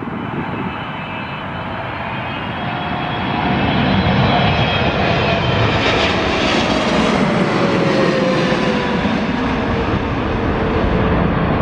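Jet airliner passing low overhead: the engine noise grows to a peak about halfway through, and a whine slides down in pitch as the aircraft goes past.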